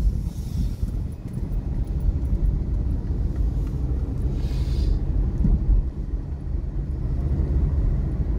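Car interior while driving slowly: a steady low rumble of engine and road noise heard inside the cabin, with a brief hiss about four and a half seconds in.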